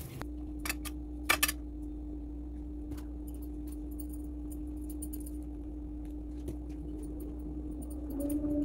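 A few sharp clinks of a metal spatula against the frosting tub and cake board in the first second and a half, then faint scraping ticks as frosting is spread on a cake, over a steady hum.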